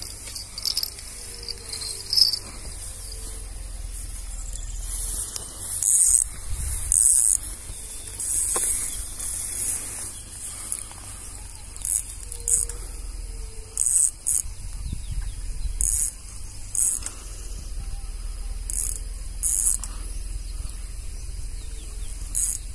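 Steady insect buzzing with low wind rumble on the microphone, broken every second or two by short, high-pitched rasping bursts.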